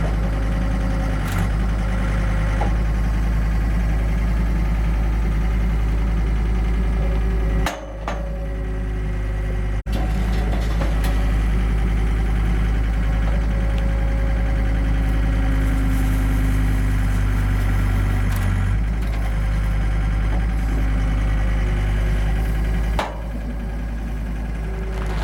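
John Deere skid steer loader's diesel engine running steadily while it works a bale slicer attachment through a hay bale, with a short dip about eight seconds in and a sharp break near ten seconds.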